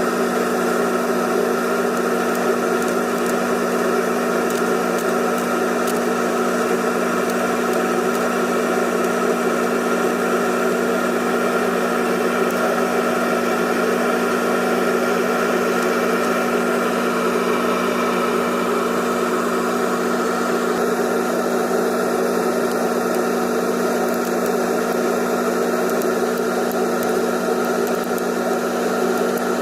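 Electric motor running with a steady hum and whine that holds unchanged throughout, the kind of noise the video puts down to loose stator plates.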